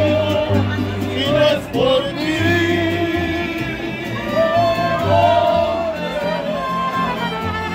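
Live mariachi music: a voice singing a melody with vibrato over strummed guitars and the deep, plucked bass notes of a guitarrón.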